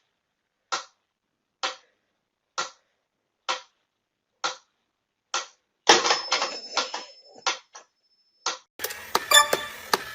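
Sharp ticks at an even pace, about one a second, like a clock. About six seconds in comes a louder clatter with a thin steady high tone for a couple of seconds, and near the end a quicker, denser run of clicks starts.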